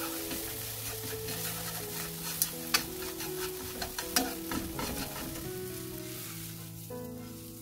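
Beaten eggs sizzling in a nonstick frying pan as they are stirred and scrambled with wooden chopsticks, with sharp taps of the chopsticks against the pan. The sizzle fades near the end as the eggs are tipped out of the pan. Soft background music plays throughout.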